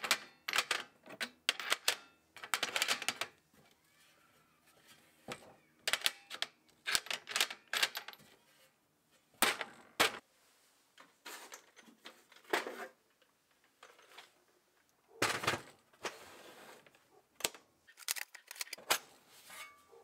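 Steel sockets clinking and clattering against each other and against a thin steel tool box as they are handled, in irregular runs of sharp clicks with short pauses between.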